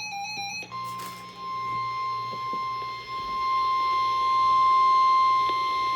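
NOAA Weather Radio warning alarm tone: a single steady high tone of about 1050 Hz that starts about a second in and holds for about five seconds, growing louder, announcing that a warning is about to be read. A short electronic tune ends just before it starts.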